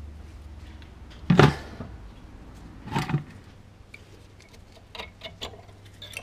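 Brake parts being handled: two loud knocks about a second and a half apart as the unbolted Jaguar X-Type brake caliper is moved and set down on a plastic container, then several lighter metal clicks from the brake pads in their bracket near the end.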